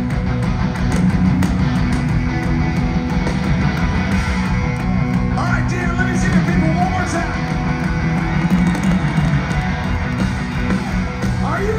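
Rock band playing live in an arena: electric guitars, bass and drums, loud and steady, heard from within the audience.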